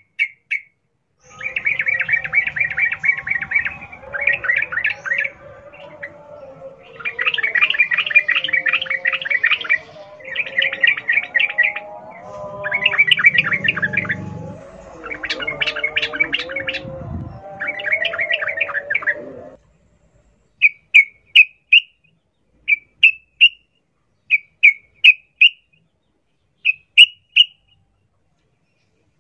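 Yellow-vented bulbul singing its fast wild-type 'ropel' song: bursts of very rapid chattering notes, each a second or two long, over a faint layer of wavering calls. About two-thirds in this cuts off abruptly, and short chirps follow in quick twos and threes.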